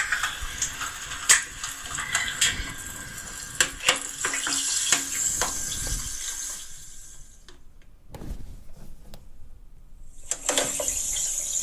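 A video's soundtrack played through a smartphone speaker: splashing like water, with sharp clicks and clinks. It drops away for a few seconds after about six and a half seconds in, then returns near the end.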